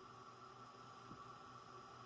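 Faint steady hum and hiss of room tone, with a thin high whine held steady; no distinct event beyond a faint tick about a second in.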